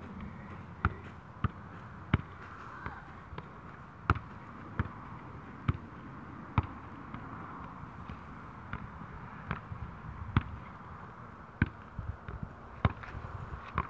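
A soccer ball being juggled: a run of sharp thuds as the ball is kept up off the foot, knee and head. There are about fifteen touches, unevenly spaced at roughly one a second.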